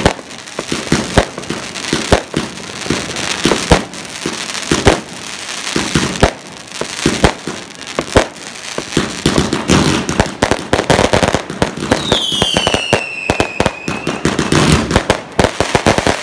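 Fireworks display: many sharp bangs in quick succession from bursting shells and firecrackers. About twelve seconds in, a whistle falls in pitch over roughly two seconds.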